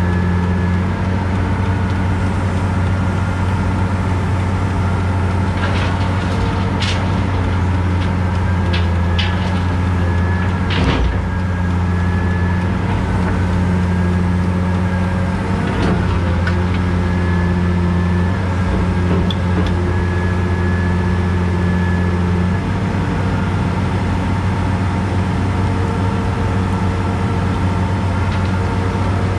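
CAT 321C excavator's diesel engine running steadily under working load, heard from inside the cab, with a whine that dips and rises in pitch as the boom and bucket move. Several short knocks and clunks from the bucket and rocky dirt come in the first half.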